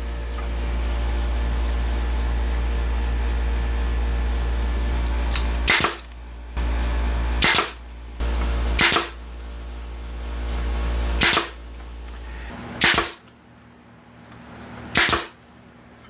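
Pneumatic nail gun firing nails into glued wood, six or seven sharp shots spaced a second or two apart, over a steady low machine hum that stops about three-quarters of the way through.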